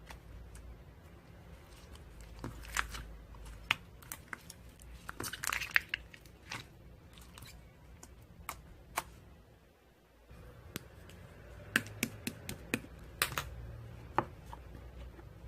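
Scattered sharp clicks and crackles, with a denser run of crackling about five to six seconds in and another cluster of clicks later on.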